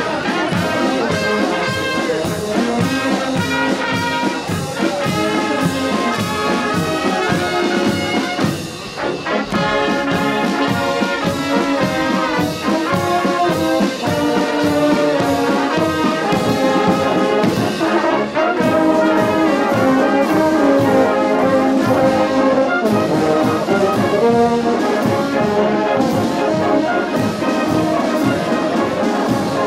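Marching brass band playing a march with drums as it parades past: tubas, tenor horns and trumpets over a steady drum beat.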